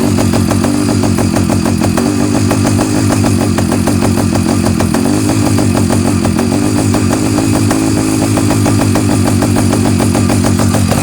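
Avenger 85 motorbike engine idling steadily with an even, rapid rumble.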